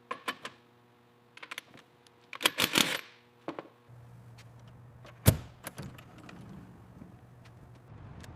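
A run of light clicks, jangles and knocks, with a brief clatter about two and a half seconds in. Then a low steady hum starts about four seconds in, broken by one sharp click.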